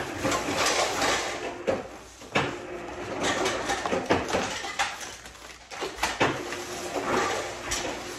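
Clear plastic takeout bag crinkling and rustling as food is unpacked from it, with light knocks of paper cups and containers being set down on the countertop.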